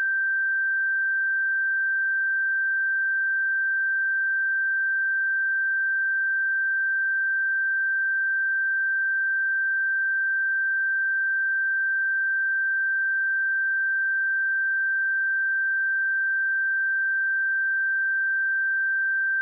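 Steady pure sine-wave test tone at 1567 Hz, one unchanging high pitch with no other sound.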